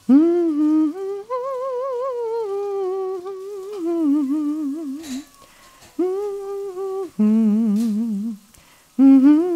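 A woman humming a wordless tune in several phrases of held, wavering notes, with a couple of light clicks along the way.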